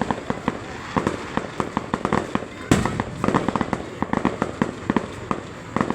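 Fireworks going off in rapid, irregular crackling pops, with one louder bang a little before the middle.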